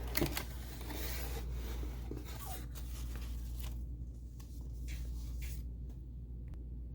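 Rustling, rubbing and scraping of packaging being handled, with scattered light clicks; the handling dies down about four seconds in, leaving a few faint clicks over a low steady hum.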